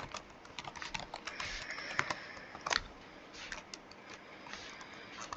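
Computer keyboard typing: irregular, scattered keystrokes, with a couple of louder clacks around the middle.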